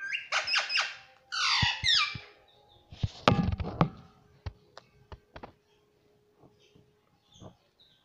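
Indian ringneck parakeet making high, chattering calls over the first two seconds, then knocking and tapping its beak on the smartphone and objects it stands on. The knocks come as a loud cluster about three seconds in, followed by scattered light taps.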